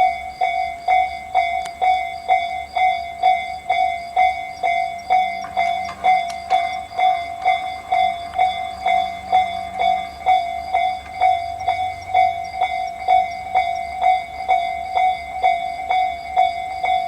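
Japanese railway level-crossing alarm ringing: the electronic Tobu Tojo Line type bell (Tobu sound C), striking a steady ding about twice a second.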